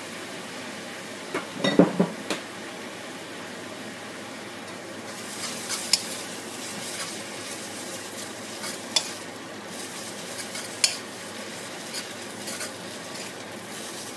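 Glass noodles and scrambled egg sizzling in a steel wok while a metal ladle stirs and scrapes through them. A quick cluster of loud clanks of the ladle against the wok comes about two seconds in, and the sizzle grows brighter about five seconds in, with occasional sharp clicks of metal on metal.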